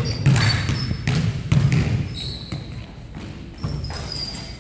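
A basketball dribbled on a hardwood gym floor, with several hard bounces in the first two seconds, and sneakers squeaking on the boards.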